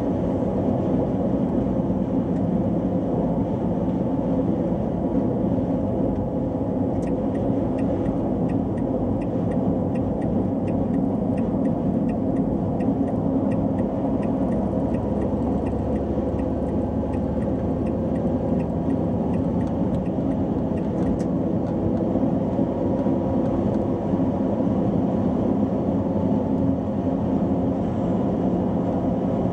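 Car interior noise at motorway cruising speed: a steady rumble of engine and tyres on the road. From about seven seconds in to about twenty seconds, a light, regular ticking runs over it at about two ticks a second, the turn-signal indicator during an overtake.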